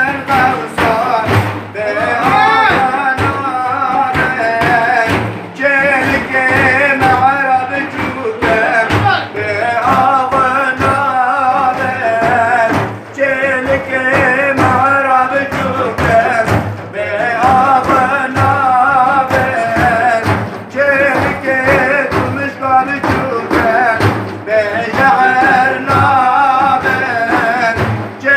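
Male voice singing a Sufi devotional hymn (ilahi) in the hadra style, with wavering, ornamented melodic lines over a steady drum beat.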